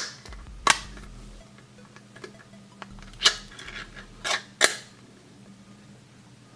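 Ration cheese spread packaging being opened by hand: about five sharp crinkles and clicks, spaced over the first five seconds.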